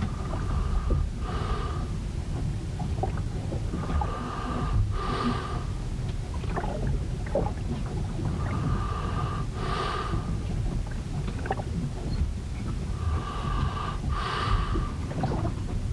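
Aboard a ship in a storm: a steady low rumble of wind and water, with a pitched two-part creaking groan from the ship that comes back about every four and a half seconds, four times, and small scattered ticks and knocks between.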